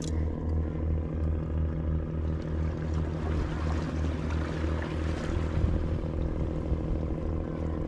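An engine running steadily, a low drone with an even, regular throb.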